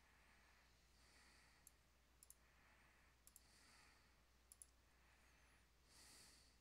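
Near silence, with a few faint computer mouse clicks, several in quick pairs, and soft breathing close to the microphone.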